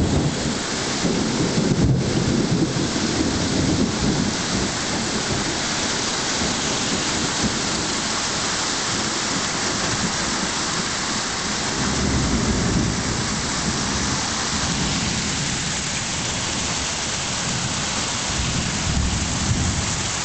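Torrential rain pouring down steadily, a downpour of about 150 mm an hour, with low rumbling surges near the start, about twelve seconds in and near the end.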